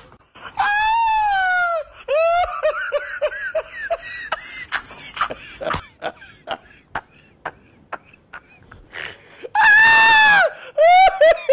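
High-pitched wailing cries: one long bending wail, then a string of short broken sobbing cries, and another loud long wail near the end.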